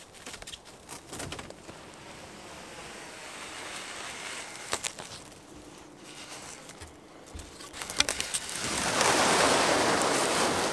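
Plastic wrap being pulled off the roll and stretched around a wooden pole: scattered crinkles and crackles of the film, then a louder, steady rasping of film peeling off the roll starting near the end.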